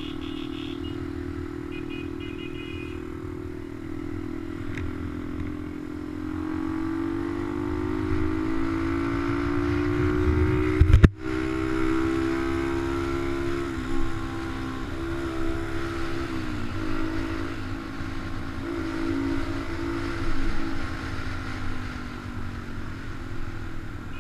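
Honda Dax's small single-cylinder four-stroke engine running under way, its pitch climbing slowly and dipping briefly a couple of times, over wind rumble on the microphone. About eleven seconds in there is a loud knock followed by a split-second cutout.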